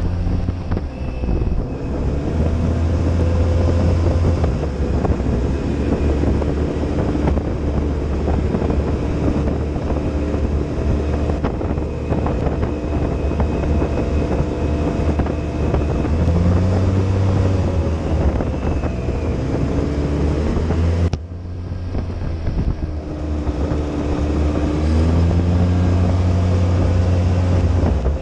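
Side-by-side UTV engine running under way, heard from inside the open cab with wind on the microphone. The engine pitch rises and falls a few times with the throttle, and the sound changes abruptly about three quarters of the way through.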